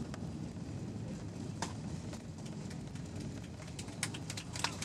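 Airbus A320 cabin noise during the landing rollout with spoilers deployed: a steady low rumble of the airliner rolling down the runway, with scattered rattling clicks from the cabin that become more frequent near the end.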